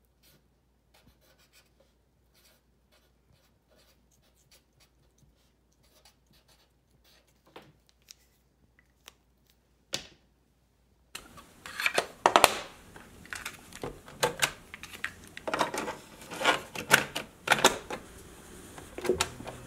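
Faint scratching of a Sharpie marker writing on a paper card, with one sharp click about halfway through. Then a steady hiss and a run of loud plastic clicks and clunks as the keys of a Sony TCM-919 cassette recorder are pressed.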